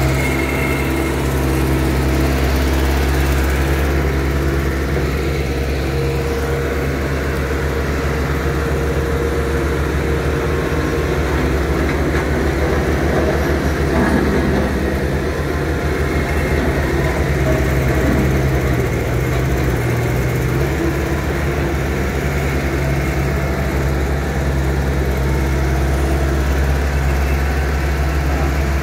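Bobcat S450 skid-steer loader's diesel engine running steadily as the machine scoops and carries a bucket of stone dust, its note dipping briefly a little past the middle.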